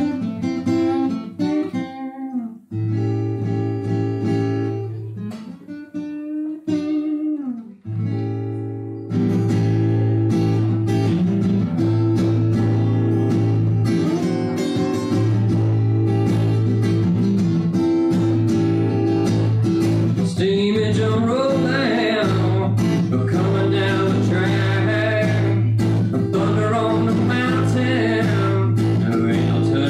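Solo acoustic guitar played live. Sparse picked notes with short pauses open the song, then it settles into steady strumming about nine seconds in. A man's singing voice joins over the guitar about twenty seconds in.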